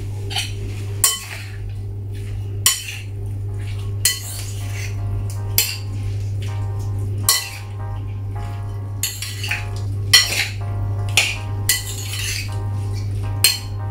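Gloved hands mixing cubed raw fish in a glass bowl: irregular scrapes and knocks against the glass, about a dozen in all. A steady low hum runs underneath.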